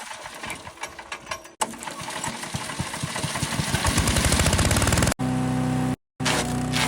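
Wood chipper's small gas engine: a pulsing that quickens and grows louder over a few seconds, then runs on steadily, broken by abrupt cuts.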